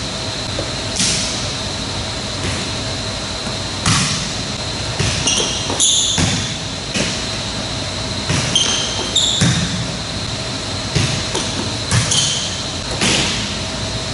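Athletic shoes squeaking and footfalls thudding on a modular tiled sport-court floor as a player shuffles and drops through defensive footwork, over a steady hum in a large gym hall. There are short squeaks twice, about five and nine seconds in, and scattered steps throughout.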